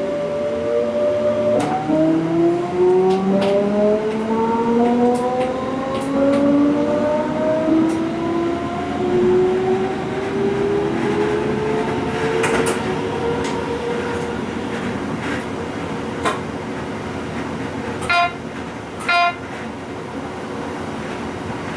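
DB Class 425 electric multiple unit accelerating, heard from the driver's cab: its traction drive gives a whine of several tones that rise steadily in pitch for about fourteen seconds, over wheel-on-rail running noise with scattered clicks. Near the end two short beeps sound about a second apart.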